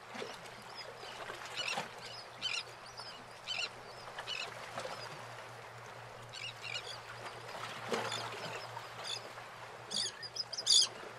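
Birds calling in short repeated calls about every second, over a steady outdoor hiss; the loudest calls come near the end.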